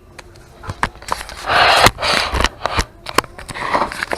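Close handling noise: scattered clicks and scraping rustles, with a denser, louder rustle about a second and a half in.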